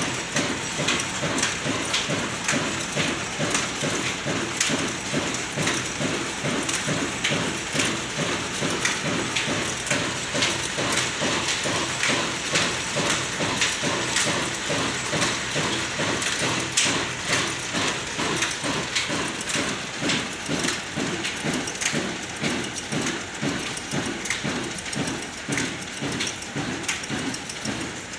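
Old black stationary diesel engine running steadily with a fast rhythmic beat, driving a flat belt and line shaft that turn a chakki flour-mill grinder; a hissing, clattering noise from the belt and mill runs over the engine beat.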